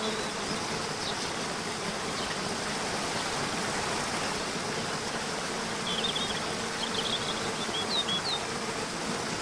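Steady rush of flowing water from a stream or waterfall, with a faint steady hum under it. A few short, high bird chirps come about six to eight seconds in.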